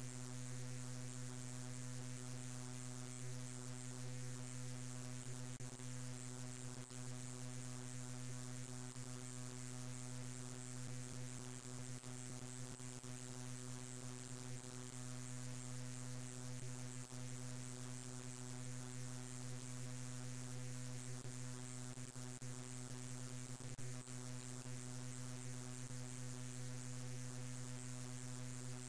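A steady low hum and buzz with a layer of hiss. It does not change at all and is typical of electrical mains hum on the soundtrack.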